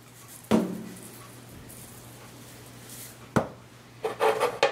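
Kitchenware being handled on a counter over a low steady hum: a knock about half a second in, a sharp click later, then a clatter near the end as the clear plastic lid of a microwave cooker is picked up.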